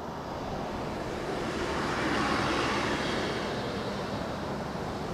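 A passing vehicle's noise swelling to its loudest about two seconds in, then fading.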